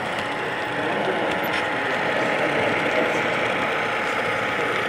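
HO scale model diesel locomotive running along the track, a steady mechanical whir of its motor and gearing with a few faint clicks.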